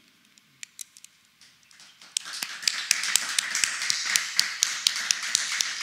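Applause beginning about two seconds in: hands clapping, with sharp claps about four times a second over a steady patter.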